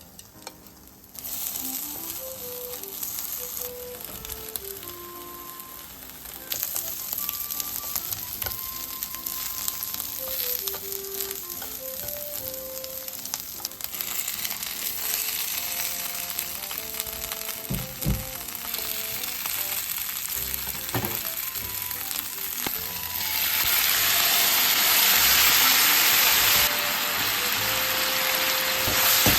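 Food sizzling in a hot frying pan, starting about a second in and growing louder in steps, loudest near the end, with a couple of knocks of a utensil against the pan. A gentle background melody plays throughout.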